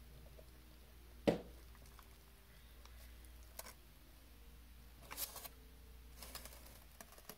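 Quiet mukbang eating sounds: a plastic fork handling crab cake in a foil-lined takeout tray, with one sharp click about a second in and a few soft crinkling, rustling noises later, over a low steady hum.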